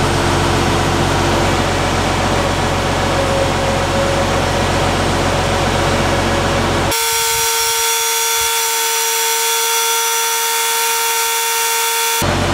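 Truck engine idling with a steady low hum. About seven seconds in, the hum cuts out suddenly and a steady electric motor whine from the linear actuator takes over as it drives the slide-out room frame out, stopping abruptly near the end when the idle hum returns.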